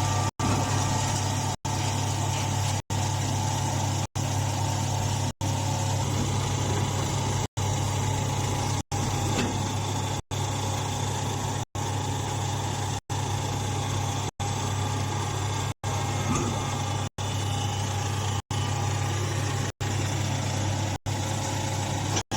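Straw baler's motor running with a steady low hum. The sound is broken by very short gaps of silence about every second and a quarter.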